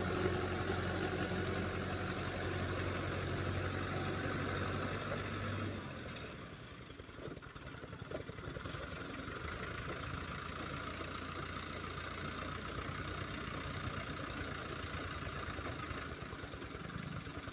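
Mahindra Arjun 555 tractor's diesel engine running steadily while driving a 7-foot Shaktiman rotavator through flooded paddy mud, without strain. It gets quieter about six seconds in as the tractor moves off and turns.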